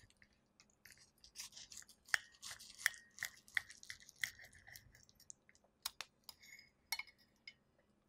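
Fork and knife cutting through a crisp-edged, cheese-topped layered potato-pancake cake on a ceramic plate: a run of crunching crackles with several sharp taps of the cutlery, which stop about a second before the end.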